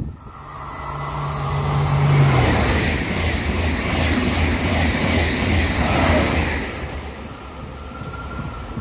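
TGV Atlantique high-speed train passing at speed: a rush of wheels and air that builds over the first two seconds, with a low hum that drops in pitch about two seconds in as the front goes by, then the steady rush of the passing cars fading toward the end.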